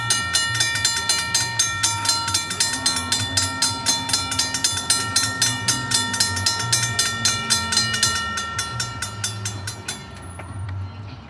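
Railroad grade-crossing warning bell ringing in rapid, evenly spaced strikes, stopping about ten seconds in, over the low rumble of a New Jersey Transit push-pull commuter train coming in past the crossing with a Comet cab car leading.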